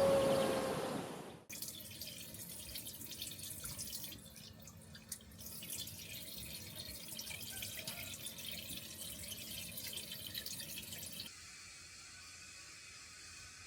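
Water trickling and dripping, with fine crackling detail. A louder noisy sound with a steady hum cuts off suddenly about a second and a half in, and near the end the sound drops to a faint steady hiss.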